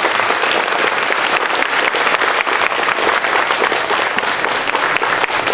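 Conference hall audience applauding with steady, dense clapping.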